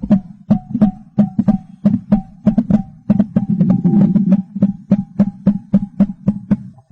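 Percussive music: a hand drum struck in a steady rhythm of about four strikes a second, each stroke ringing with a low tone. It cuts off abruptly at the end.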